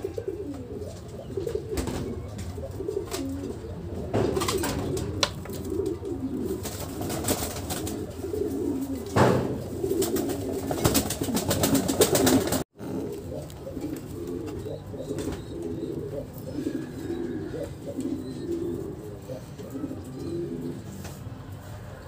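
Domestic pigeons cooing: a continual low, warbling coo, with rustling and a few knocks in the middle stretch.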